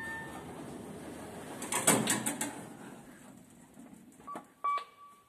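Lift's sliding doors moving, with a clattering rush about two seconds in. Near the end a floor button on the lift's panel is pressed: two clicks, each followed by a short beep.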